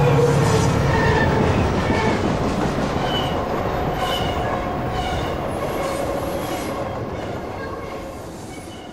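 A train running on rails: a steady rolling rumble with short high squeals every second or so, fading out gradually.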